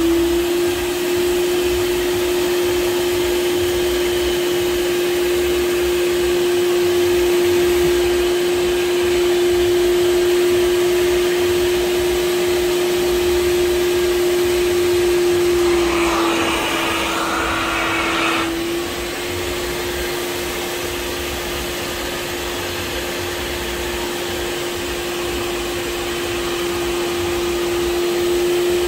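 Kärcher Puzzi 10/1 spray extractor's suction motor running with a steady whine, the hand upholstery nozzle drawing air and water through seat fabric. About two-thirds of the way through, a louder rush of air lasts a couple of seconds and the whine dips slightly in pitch.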